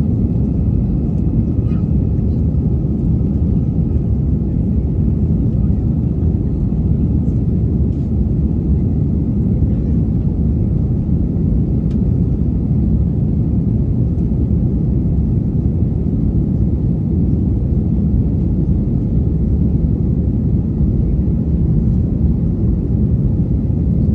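Steady low rumble of an Airbus A320 in flight, its engines and rushing air heard inside the passenger cabin.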